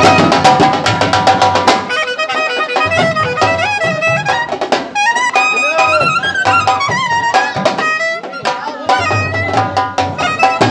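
Dhols, double-headed barrel drums beaten with sticks, playing a fast run of strokes for about the first two seconds, then keeping a lighter beat under a melody with sliding notes.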